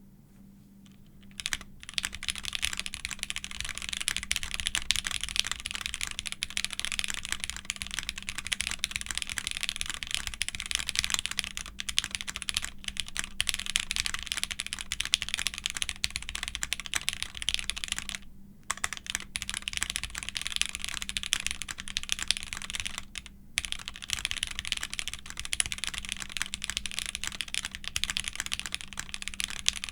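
Fast continuous typing on a custom mechanical keyboard with lubed Gateron X linear switches on a polypropylene plate, a dense run of key clacks that starts about a second and a half in and pauses briefly twice.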